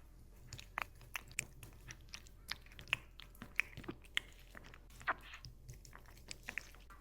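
A cat chewing boiled water spinach without pause: irregular crisp, wet crunches, about two a second.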